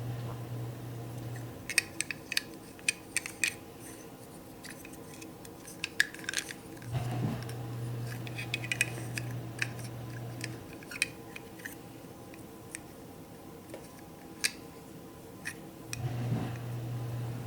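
Light clicks and taps of a small plastic or resin miniature microwave and its loose inside piece being handled and fitted together. A steady low hum comes and goes under them, starting and stopping twice.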